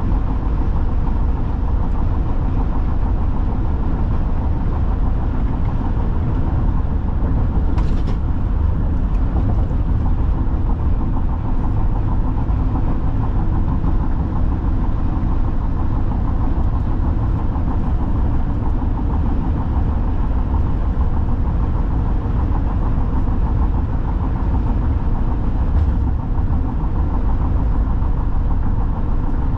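Steady road noise of a car cruising at highway speed, heard from inside the cabin: a low, even rumble of tyres and engine.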